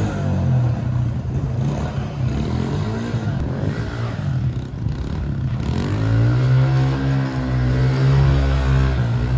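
A new Honda motocross bike's four-stroke engine running and being revved, its pitch dipping and rising again about two-thirds of the way through.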